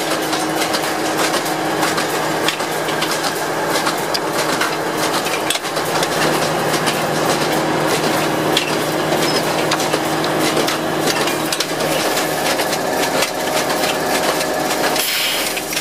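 Ferrari Futura automatic transplanter at work: a dense, irregular clatter of clicks and knocks from its plant-tray and planting mechanism, over the steady hum of the carrier machine's engine.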